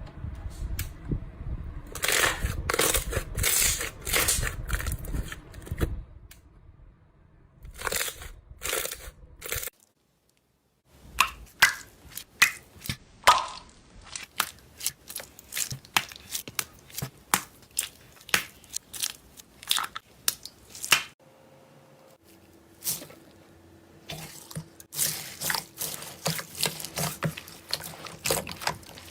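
Slime being squeezed and poked by hand, giving wet, crunchy crackles and squelches, then runs of short sharp pops and clicks. There is a brief silent gap about ten seconds in.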